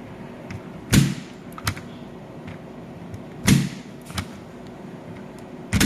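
Spring-loaded impact punch-down tool firing three times, about two and a half seconds apart: each a sharp snap followed by a fainter click. Each strike seats one twisted-pair wire into the patch panel's terminal and cuts off its excess end.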